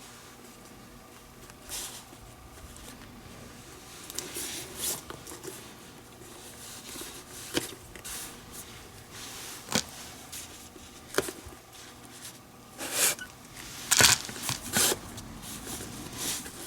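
Leather lace being pulled through the lace holes of a Rawlings Gamer baseball glove and drawn tight: short, scattered rasping pulls and light clicks, coming more often in the second half.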